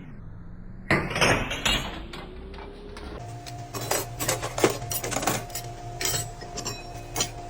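Loose metal transmission parts clinking and clattering as they are handled and set down. A steady hum comes in about three seconds in.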